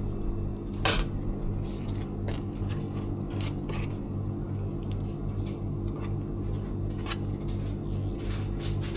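Light clatter of utensils and food containers being handled while fruit is prepared, short clicks and knocks with the loudest about a second in, over a steady low electrical hum.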